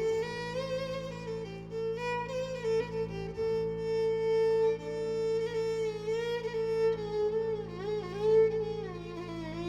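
Violin playing an Arabic song melody with vibrato and sliding notes over a steady low sustained accompaniment.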